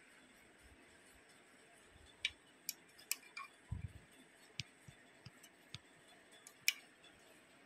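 Multimeter probe tips tapping against power-transistor legs and an aluminium heatsink, making a string of irregular sharp clicks that starts about two seconds in, with one soft thump among them.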